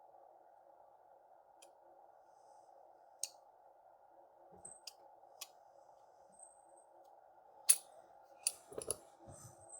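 Scattered light clicks and taps from small objects being handled, a few louder ones near the end, over a faint steady hum.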